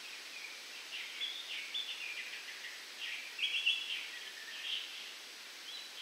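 Birds calling from coconut palms, a run of short chattering calls that is loudest about halfway through, over a steady rush of wind in the palm fronds.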